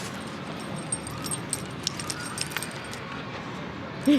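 Small metal tags on a dog's collar jingling in quick irregular clicks as the dog walks, over steady background noise. The jingling stops about three seconds in, and a brief voice is heard right at the end.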